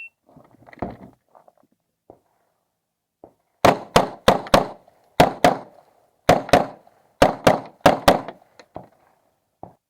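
Uzi Pro 9mm pistol firing twelve shots in six quick pairs (double taps) over about four and a half seconds. A single thump comes about a second in, and two faint clicks follow near the end.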